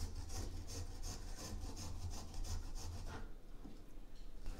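Fresh ginger being grated on a small green plastic turtle-shaped grater: repeated rasping scrapes, about two or three strokes a second, with a short pause a little past three seconds in before the strokes resume.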